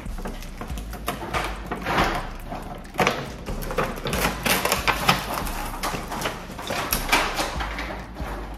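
Crackling and clicking of a clear plastic ornament container being handled and opened, with tape being peeled off, in a run of irregular crinkles and snaps.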